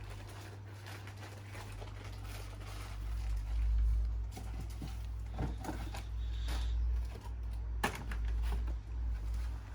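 Handling noise from refilling bird feeders: light rustling and small clicks over a low rumble, with one sharp click near the end.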